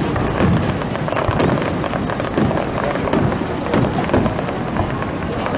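Fireworks display: a continuous barrage of booms and crackling with no break.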